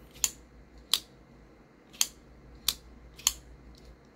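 CMB Predator crossbar-lock folding knife being flicked open and shut by hand: five sharp clicks, roughly one every second or less, as the blade snaps into its open and closed positions.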